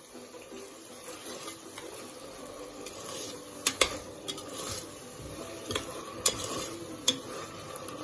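A metal spoon stirring and scraping an onion, tomato and curd masala frying in oil in a steel pressure cooker, over a steady sizzle. A few sharp clinks of the spoon against the pot stand out, two close together in the middle and two more near the end.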